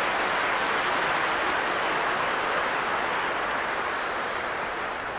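A large congregation applauding in a vast church nave, a dense steady clapping that begins to die away near the end.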